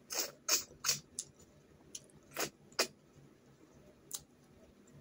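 Snails in curry being sucked out of their shells by mouth: about six short, sharp slurps, three in quick succession in the first second, two more around the middle and a last one near the end.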